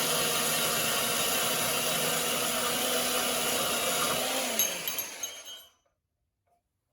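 Bauer variable-speed portable band saw cutting through a welded 16-gauge mild steel tube, running steadily. A little over four seconds in the motor is let off and winds down, its pitch falling, and the sound dies away.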